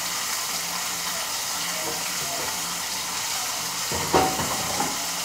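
Pork chops frying in oil in a skillet, a steady sizzle. About four seconds in, a single metal clank as the lid of a metal cooking pot is lifted off.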